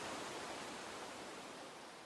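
Gentle running water of a stream, a steady rushing hiss, fading down gradually.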